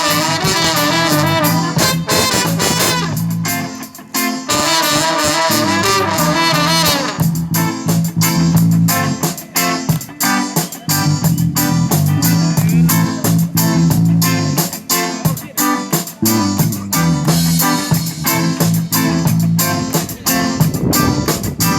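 Live band music: a wavering lead melody with vibrato over guitar and bass for the first several seconds, then a driving section with a steady beat.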